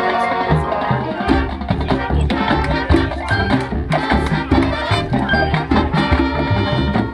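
Marching band playing its show music: melody over marimbas and drums.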